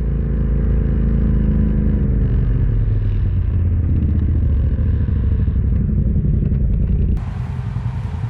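Side-by-side UTV engine running as it drives, a loud, steady low drone. A held music chord fades out under it over the first couple of seconds, and about seven seconds in the engine sound changes abruptly.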